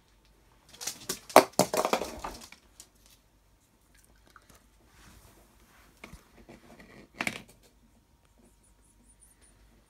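Dog crunching and chewing a puffed pig snout: a burst of brittle crunches about a second in, quieter chewing ticks after, and one more sharp crunch later on.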